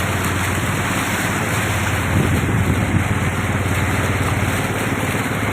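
A vehicle engine running steadily with a fine rapid pulse, under a constant rushing noise of the vehicle moving through standing floodwater.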